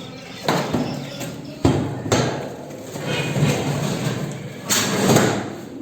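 A window air conditioner unit being pushed into its metal outer casing: a few sharp knocks and bangs with stretches of scraping as it slides in, loudest near the end.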